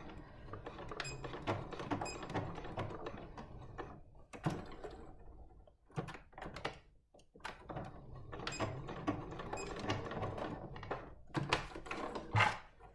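Electric home sewing machine stitching in short runs, with fabric being moved about in between and a few sharp knocks near the end.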